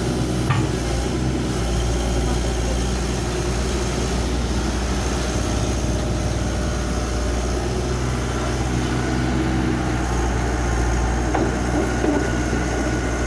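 Excavator's diesel engine running steadily at low revs, a constant low hum.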